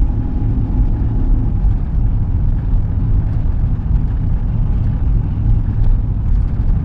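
Steady low rumble of engine and tyre noise from a vehicle driving at highway speed, heard from inside the vehicle.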